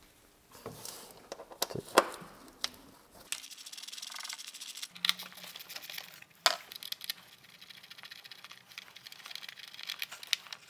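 Hand work on a car engine: tools and screws clicking and plastic parts rattling and rustling as gloved hands take out two Torx screws and free a plastic wiring-harness sheath. There are sharp clicks about two and six and a half seconds in, and a stretch of fast, fine clicking in between.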